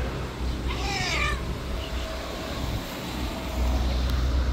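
A stray cat meows once, a single call of about half a second about a second in, over a low steady rumble.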